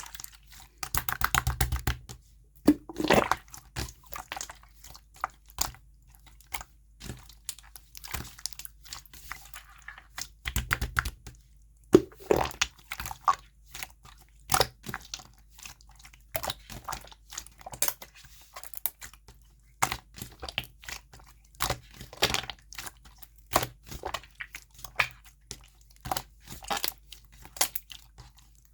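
Slime being squished, pressed and stretched by hand, giving many quick sticky clicks and crackling pops.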